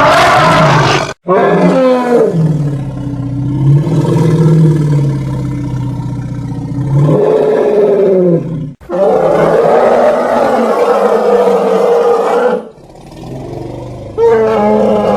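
Elephants roaring: several long, loud calls whose pitch bends up and down. Short breaks come about a second in and around nine seconds, and a quieter stretch falls near the end.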